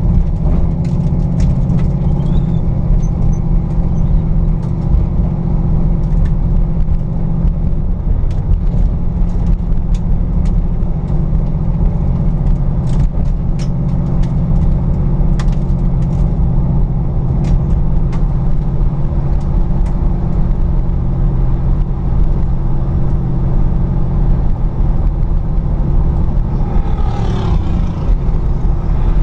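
1974 Oldsmobile Omega's engine running steadily under way on a time-trial run, heard from inside the cabin with road and wind noise and occasional sharp rattles of the interior. A brief rising-and-falling whine comes near the end.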